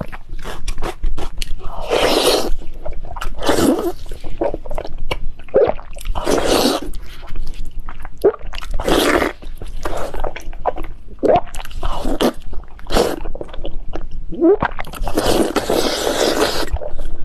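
A person eating seafood close to the microphone: a run of wet smacking and crunching clicks throughout, broken by several longer slurps, the longest near the end.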